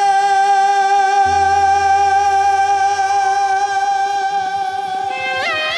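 Live Baul devotional song with Roland XPS-10 keyboard: a long note held steady over a low keyboard bass note and a light ticking rhythm, then a melody line sliding upward with wavering pitch near the end.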